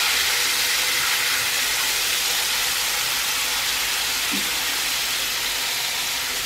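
Marinated salmon fillets sizzling steadily, skin side down, in hot coconut oil in a non-stick frying pan.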